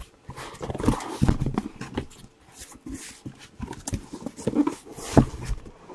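Cardboard shipping case being handled and opened: rustling, scraping and light knocks of the cardboard, with a sharp knock about five seconds in.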